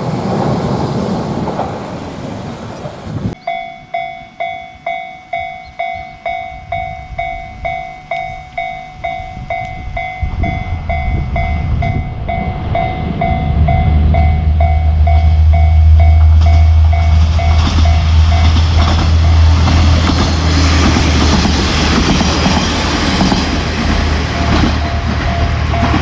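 Japanese level-crossing bell ringing its steady kan-kan at about two strokes a second, starting after a sudden cut about three seconds in. From about ten seconds in, a diesel train approaches and passes, its low engine drone and rail rumble growing loud and burying the bell.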